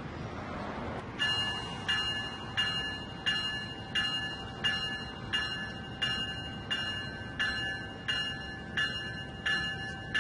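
Bell on an approaching NJ Transit commuter train, starting about a second in and ringing evenly, about three strikes every two seconds, over a low rumble of the train.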